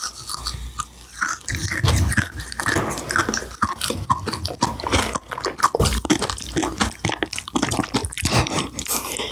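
Close-miked eating of TokTok jelly: wet chewing and biting with many irregular crackly crunches from the ice-like granules in the jelly, which crunch like shaved ice.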